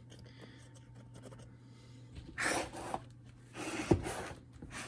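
Handling noise: two soft rubbing, rustling sounds, about two and a half and four seconds in, with a small click during the second, over a faint steady low hum.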